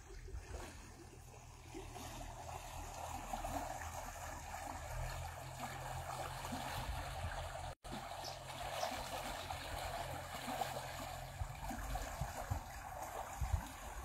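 Small stream flowing, a steady rushing of water spilling into a pool, louder from about two seconds in; the sound cuts out for an instant about eight seconds in.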